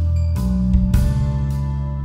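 Background music: sustained low bass notes that change pitch, with percussion hits about half a second and a second in.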